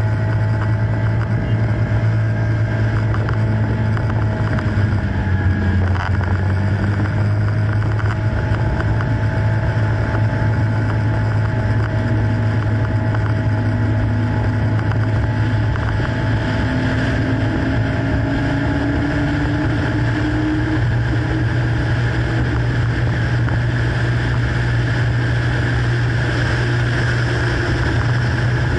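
Motorcycle engine heard from on board while riding, a steady drone whose pitch slowly rises and falls with the throttle, rising over several seconds about halfway through, with wind rushing over the microphone.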